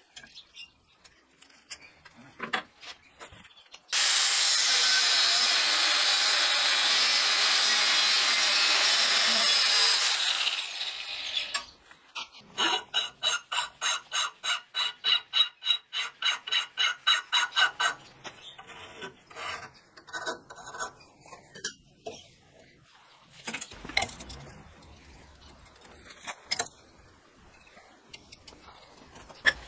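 An angle grinder runs on steel flat bar for about six seconds, then spins down. Then a hand tool is worked back and forth across the steel, about three strokes a second, each stroke ringing metallically. Light knocks and handling clatter come before and after.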